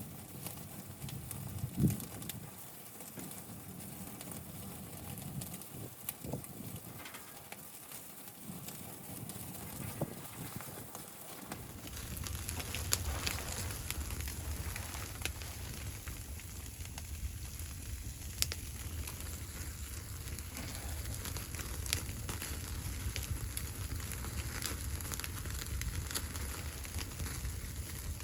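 Wood fire crackling, with scattered sharp pops. About twelve seconds in, the background changes abruptly to a steadier low rumble and hiss under the crackle.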